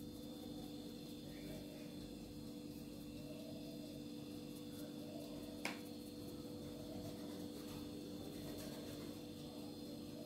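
Quiet room tone with a steady electrical hum, broken once by a short click about halfway through.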